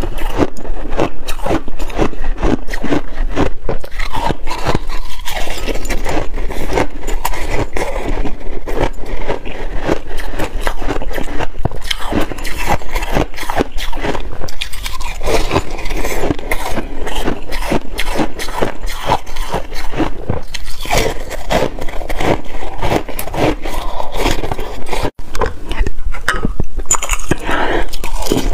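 Close-miked chewing and crunching of frozen shaved ice, a dense run of crackling crunches as the ice breaks between the teeth, with a metal spoon scraping the frozen block. The sound drops out for a moment near the end.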